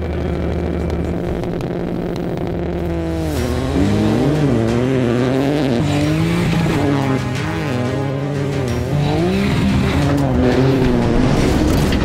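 Rally car engine at full speed, its revs rising and dropping again and again through gear changes from about three seconds in, with music underneath.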